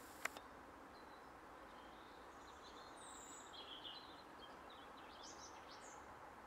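Near silence: faint steady outdoor hiss with a few faint, short, high chirps from birds in the middle, and a single click just after the start.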